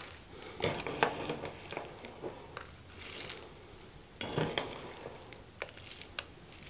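Metal spoon scooping coarse pink Himalayan salt from a small glass bowl and tipping it into a salt grinder's chamber: scattered light clinks and scrapes of spoon, glass and salt crystals, with small clusters a few times.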